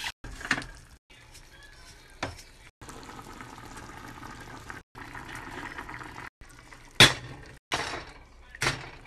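A quick series of cooking sounds: water poured into a stainless saucepan of quinoa, then the quinoa bubbling at a boil. Near the end a spatula knocks and scrapes three times against a stainless frying pan as chicken pieces are flipped, the first knock the loudest.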